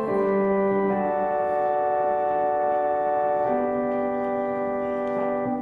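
Organ playing slow, held chords, changing chord about a second in and again after about three and a half seconds, with the last chord released at the end.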